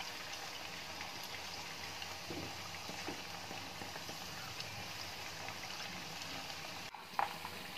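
Marinated fish pieces sizzling steadily in hot ghee in a frying pan over a low gas flame. The sizzle briefly cuts out about seven seconds in.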